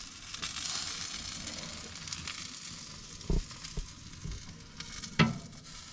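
Jerk chicken sizzling steadily on the grate of an oil-drum jerk pan over the fire, with a couple of short knocks; the louder one comes about five seconds in.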